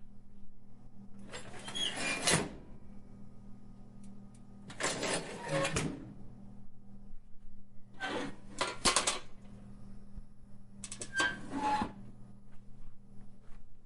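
Heavy industrial metal hinge being swung, four times, each movement a scraping creak of about a second with short squeaky notes in it.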